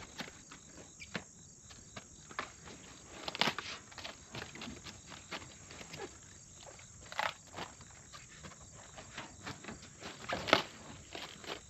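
Cabbage heads being cut and handled: rustling and crunching of crisp leaves with small clicks, and three sharper snaps, the last the loudest.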